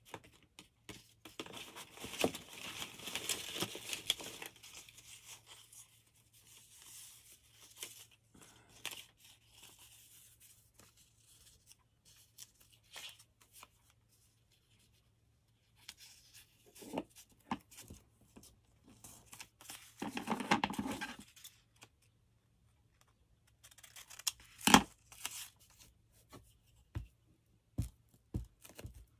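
Paper scrap strips being handled and pressed down for a collage: irregular rustling and scraping, heaviest around two to four seconds in and again around twenty seconds in, with a sharp tap about 25 seconds in.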